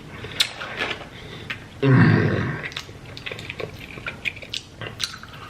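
Close-miked mouth sounds of a person biting and chewing food, with scattered wet clicks and smacks and a louder burst about two seconds in.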